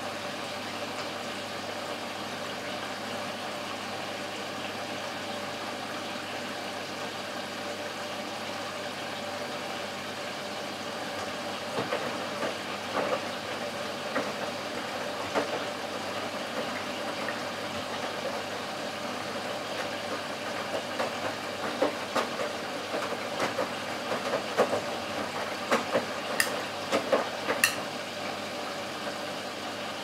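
Bosch Serie 6 front-loading washing machine tumbling a small load in the wash stage of its Super Quick programme: a steady motor hum with the swish of water. From about twelve seconds in come irregular clicks and knocks of the wet laundry turning in the drum, sharpest near the end.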